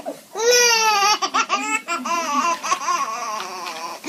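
A dog howling in long wails, one falling in pitch at the start and one held near the end, with a baby laughing in short bursts between them.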